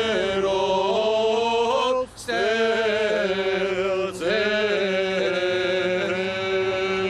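Armenian priests chanting a slow liturgical hymn in male voices, holding long notes that slide from pitch to pitch, with two short breaks for breath about two and four seconds in.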